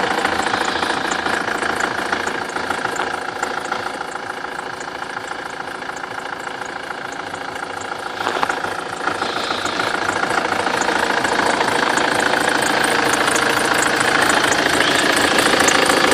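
BMW N47D20 four-cylinder diesel idling with its even clatter, and the accessory drive belt whistling over it. A short knock sounds about eight seconds in, and the whole sound grows louder in the last few seconds.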